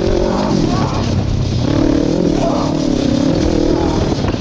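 Ninja 650 motorcycle engine in an off-road go-kart, running under throttle across rough ground. The engine note wavers, dips about a second and a half in, then rises and holds.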